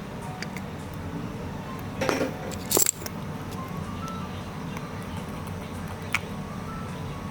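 Background music with a simple chiming melody over a low hum, broken about two seconds in by a short loud metallic clatter and later by a single sharp click.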